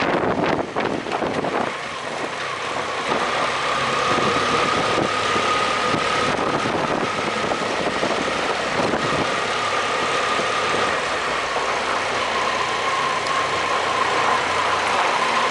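BMW F800GS parallel-twin engine running at low speed while riding through a rock-cut tunnel. For the first couple of seconds there is wind buffeting on the microphone; after that the engine noise is steady with a thin high whine that drops slightly in pitch past the middle.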